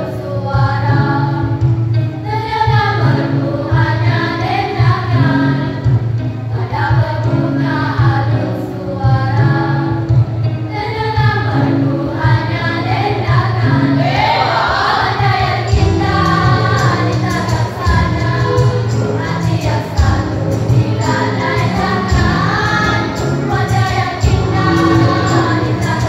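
Choir singing a song, with sustained low accompaniment under the voices.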